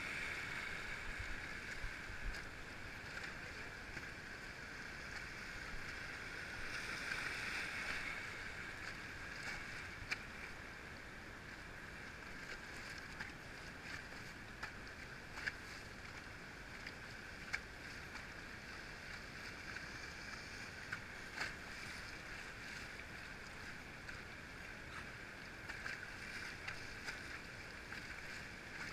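Rushing river water around an inflatable raft drifting through riffles: a steady hiss, with a few small clicks scattered through.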